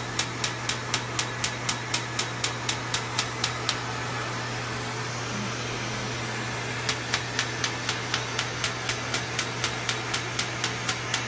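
Erbium resurfacing laser firing in a steady train of sharp snaps, about four a second, as it ablates facial skin. The snaps pause for about three seconds mid-way, then resume. Under them runs the steady hiss of a smoke-evacuator suction tube.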